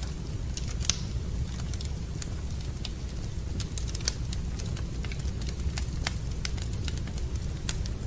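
Wood fire crackling in a fireplace: irregular sharp snaps and pops over a steady low rumble, with two louder pops, about a second in and about four seconds in.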